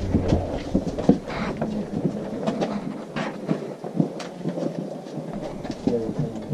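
Scuffing and scraping of clothing, hands and shoes against rock, with bumps and rubbing on the camera, as people climb up through a narrow rock crevice. Faint voices come in near the end.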